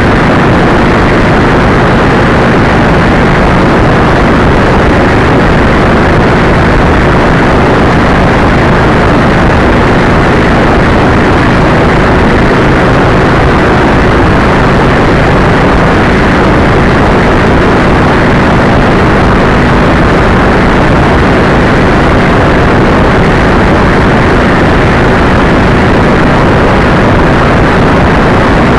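Loud, steady wind noise buffeting a vehicle-mounted camera's microphone at highway speed, with a steady engine drone beneath it.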